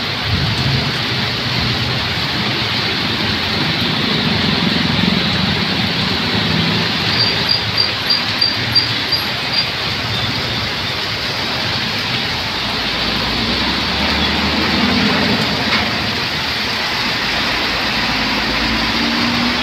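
Heavy rain pouring down, with trucks and motorcycles going by on the wet road, their engines swelling and fading as they pass. About seven seconds in, a quick run of about eight short high peeps.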